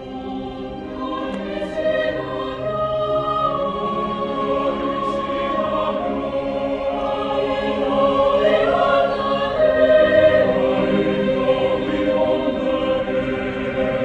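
Mixed choir singing sustained chords with an orchestra's strings, swelling steadily louder.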